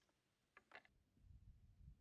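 Near silence, with two or three faint light clicks a little over half a second in and a faint low rumble after them.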